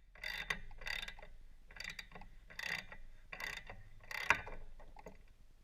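Socket ratchet wrench clicking in about six short strokes as a spark plug is loosened from an aircraft piston engine's cylinder.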